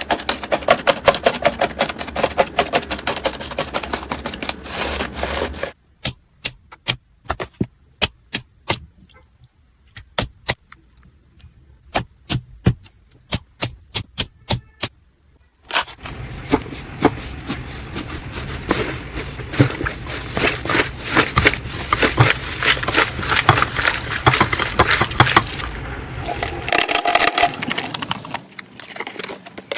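Slime being worked by hand, with quick runs of sticky clicks and crackling pops. A quieter stretch in the middle has sparser, separate clicks.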